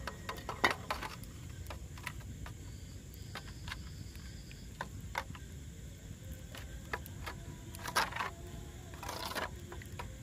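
A metal spoon beating eggs in a bowl, giving scattered light clicks and scrapes against the bowl. There are a few louder clinks about 8 and 9 seconds in, over a steady low hum.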